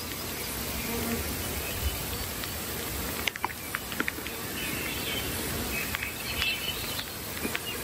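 Insects buzzing and chirping over a steady outdoor hiss, with a few light ticks about three seconds in and again near the end.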